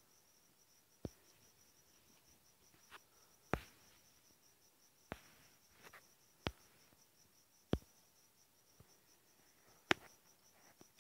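Faint, steady high-pitched insect chirping in even pulses, with about six sharp clicks spaced one to two and a half seconds apart.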